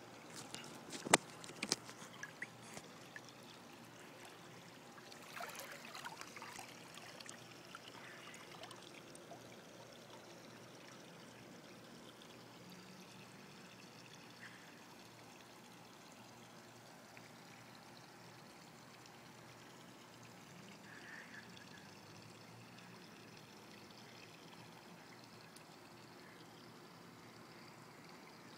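Swimming-pool water splashing close to the microphone, with a sharp splash about a second in and more splashing around five to eight seconds in, then a faint steady trickling of water.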